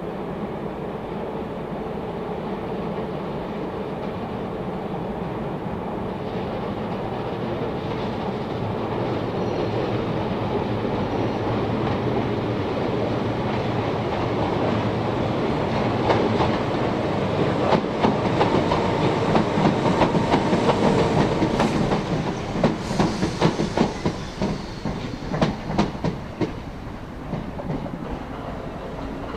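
A train approaching and passing close by. Its running noise grows steadily louder, then wheels clack sharply over rail joints as the carriages go past, easing off near the end.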